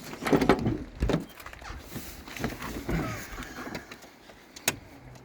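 Rustling and knocking handling sounds, with a couple of knocks in the first second and a single sharp click near the end.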